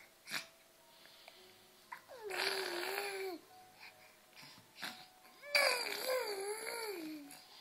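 Young child's voice: a short cough near the start, then two drawn-out whining, crying sounds, the first about two seconds in and the second past halfway, each wavering and falling in pitch.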